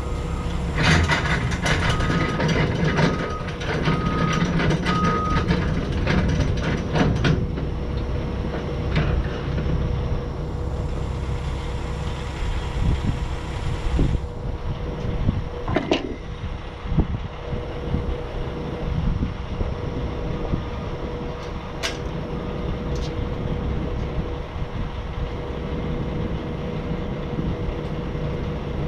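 Heavy vehicle engine running steadily. For the first several seconds it is joined by dense metallic rattling and about five short, evenly spaced beeps like a reversing alarm; after that there are only a few scattered knocks.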